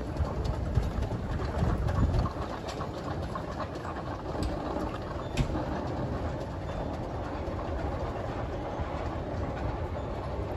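Shay geared steam locomotive running as it pulls passenger cars past, a continuous rumble of engine and wheels on the rails, with a few sharp clanks.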